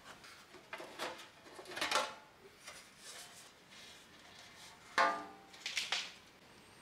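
The vented metal top cover of a Soviet amplifier being worked loose and lifted off its chassis. It scrapes and clinks metal on metal in the first two seconds. About five seconds in there is a sharp metallic clank that rings briefly, then a second clatter.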